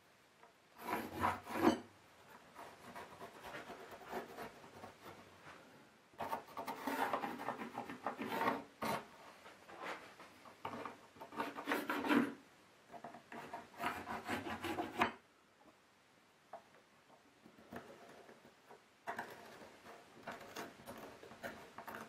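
A hand tool filing and scraping the edges of a stainless steel rudder iron fitting in several bursts of quick strokes, with short pauses between them.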